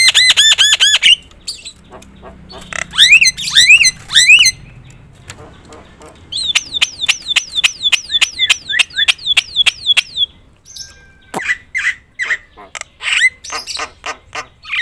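Javan myna (jalak kebo) singing a loud, varied song: a fast run of repeated notes, then three loud rising-and-falling whistles, then a long series of quick descending whistles at about six a second, ending in mixed harsh calls.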